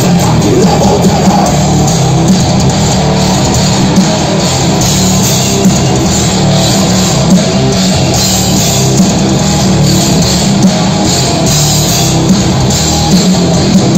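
Heavy metal band playing live and loud: distorted electric guitars over a steady drum beat.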